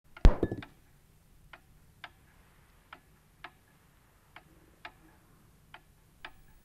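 A sharp thud, then the soft ticking of a clock in an uneven tick-tock: pairs of ticks about half a second apart, repeating about every second and a half.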